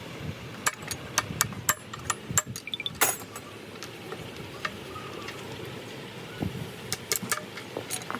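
Irregular sharp metallic clicks and clinks of tools and gearbox parts being handled, bunched in the first few seconds with a louder knock about three seconds in and another cluster near the end, over a steady low background rumble.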